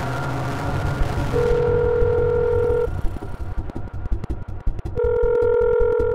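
Mobile phone ringing with an incoming call: two steady ring tones, each about a second and a half long and a couple of seconds apart, over a low throbbing music score.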